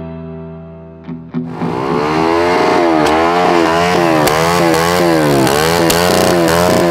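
A guitar chord rings out and fades, then, about a second and a half in, small dirt-bike engines come in loud, racing pit bikes revving up and dropping back over and over as they shift and ride, several engines overlapping.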